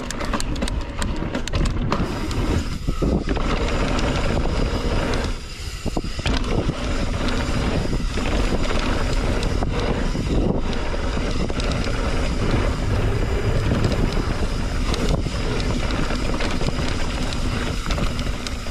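Mountain bike running fast down a dirt jump trail: steady wind noise on the microphone over tyre noise and the rattle and ticking of the bike. The noise drops briefly about five and a half seconds in.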